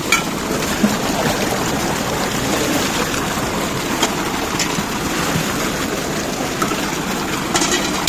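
Tubewell outlet pipe gushing water into a concrete tank: a steady, loud rush of splashing water, with a few brief clicks and knocks near the start and end.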